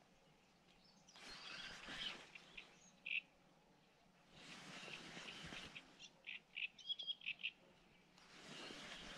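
Small birds chirping in short bursts, with a quick run of chirps about six to seven seconds in. Three soft hushing swells of noise come and go about every three to four seconds.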